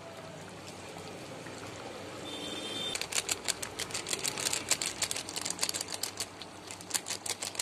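A steady soft hiss, then from about three seconds in a rapid, irregular run of crinkling clicks as ground masala is shaken and tapped out of a plastic spice packet over the pot.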